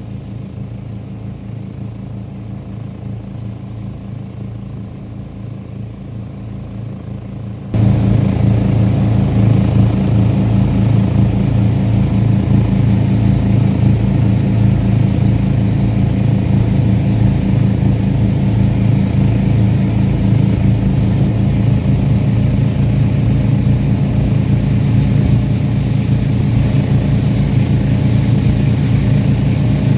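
An engine running steadily with a low, even drone. It becomes much louder suddenly about eight seconds in.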